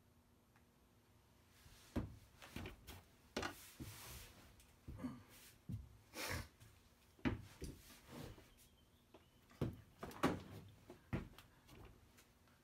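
A string of irregular knocks and clatters of hand tools being handled and set down, starting about two seconds in, a few with a brief scrape or rattle.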